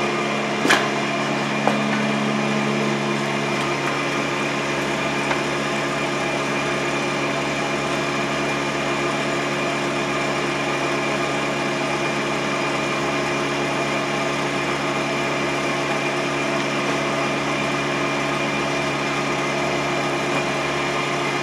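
A machine running at a steady, unchanging speed, giving an even engine-like drone, with one sharp click about a second in.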